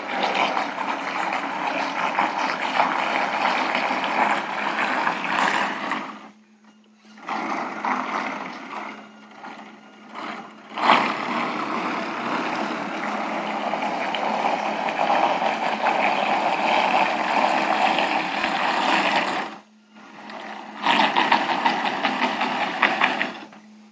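Propellers of a 54-inch radio-controlled model tugboat churning and cavitating at the water's surface, because the boat sits too high without ballast and the props are not fully submerged. The churning comes in runs of several seconds that stop and start again three times, with a faint steady hum in the short gaps.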